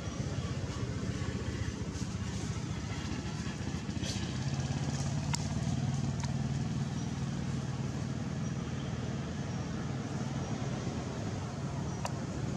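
A motor engine running steadily with a low hum, growing louder for a few seconds in the middle, with a few faint sharp clicks.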